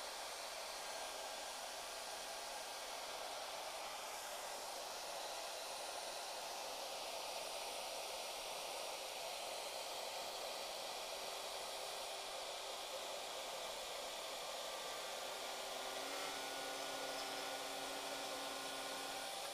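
Shaper Origin handheld CNC router running steadily while it routes wood, an even rushing noise. A few faint held tones come in near the end.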